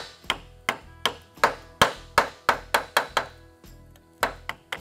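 A small hammer striking a piece of sheet steel clamped in a bench vise, shaping a curve onto the end of a patch piece. The blows are sharp and metallic, about three a second with a short ring after each, and there is a pause of about a second near the end before they resume.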